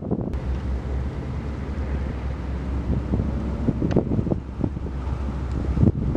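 Wind buffeting the microphone over a steady low hum: the engine drone of a small high-speed boat crossing open water.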